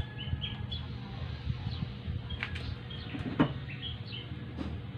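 Small birds chirping, short repeated chirps over a steady low hum, with one sharp knock about three and a half seconds in.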